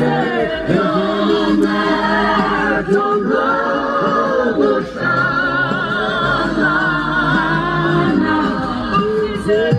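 Several voices singing together in harmony, unaccompanied in the manner of a choir, some held notes wavering with vibrato.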